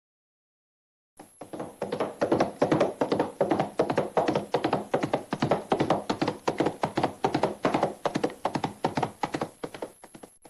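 A rapid, even series of dull taps or thuds, about five a second, starting about a second in and lasting roughly nine seconds.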